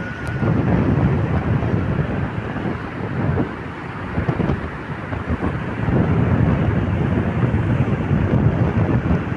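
Wind buffeting the microphone at the sea, a gusting low rumble that swells and eases over the seconds, with the sea's wash beneath it.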